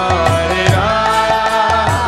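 Kirtan music: a mantra chanted over sustained pitched notes, with a hand drum beating low strokes in rhythm.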